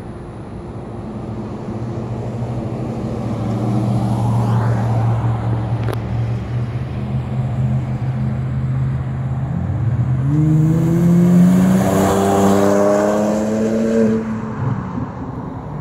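BMW 535i straight-six through a custom Proven Power exhaust: a steady exhaust drone as the car approaches, then the note climbs in pitch under hard acceleration about ten seconds in, loudest as the car goes past, and drops away near the end.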